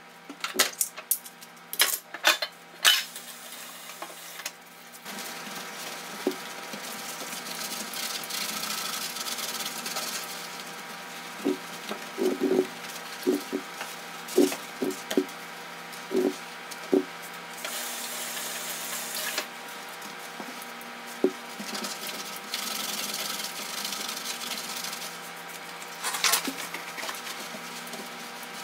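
A sponge scrubbing a soapy gas stovetop, a steady wet rubbing with a run of brief louder strokes near the middle. A few sharp clicks and knocks come in the first three seconds.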